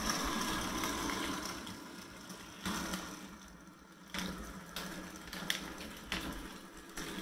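HO-scale model diesel locomotive's small electric motor whirring as it runs slowly along the track, with a few sharp clicks from the wheels and track. It is sluggish and hesitant even with the DC transformer turned all the way up, which the owner takes as a sign that it needs servicing.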